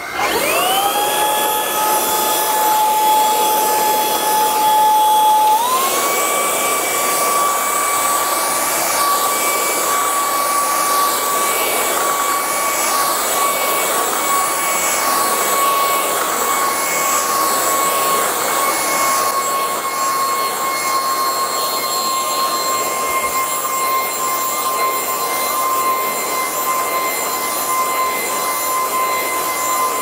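MOOSOO K17 cordless stick vacuum with its powered roller head running over a carpet rug. The motor winds up with a rising whine as it switches on, steps up to a higher speed about five and a half seconds in, then holds a steady high whine over the rush of suction.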